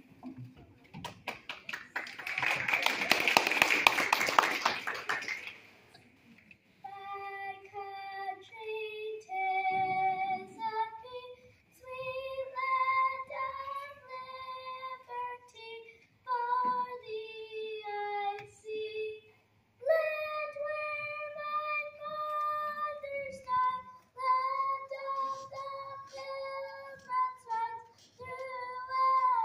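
Audience clapping for a few seconds, then a child singing a solo in phrases of held notes that step up and down, with short pauses between phrases.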